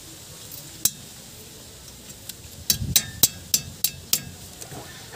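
Sharp metal clinks of pliers and a hand tool working at the axle nut on a wheel hub. One clink comes about a second in, then a quick run of about eight clinks, some with a brief metallic ring.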